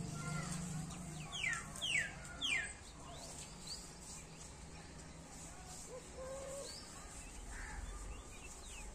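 A bird calling: three quick whistled notes, each falling in pitch, about two seconds in, with a few fainter chirps after.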